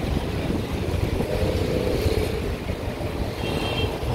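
Street traffic noise: passing cars and motorcycles under a steady low rumble.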